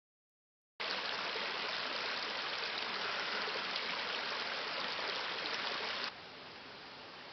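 Steady water noise that cuts in suddenly about a second in and drops abruptly to a quieter, similar noise about six seconds in.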